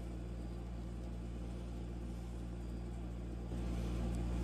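Steady low machine hum, a little louder from about three and a half seconds in.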